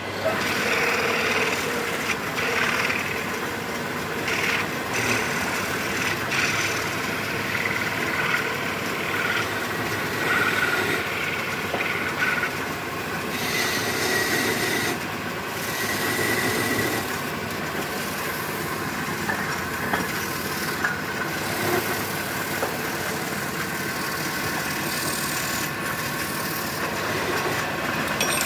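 Homemade wood lathe running, with a turning tool working the rim of a spinning wooden bowl, giving a steady scraping noise. A brief high squeal comes a little past halfway.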